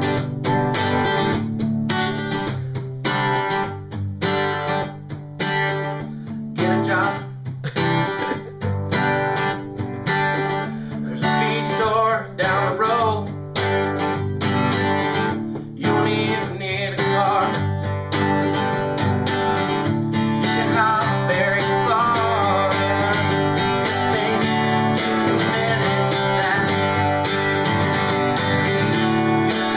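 Acoustic guitar strummed in chords. It starts with separate, accented strums and short breaks, then settles into steady continuous strumming about halfway through.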